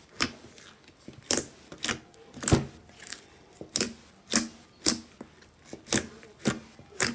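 Glossy green slime being squeezed and kneaded by hand, giving sharp clicks and pops from trapped air, about two a second.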